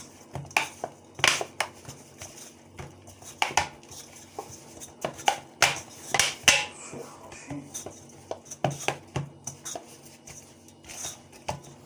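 Dough being kneaded by hand: irregular slaps and knocks of the dough and hands working it.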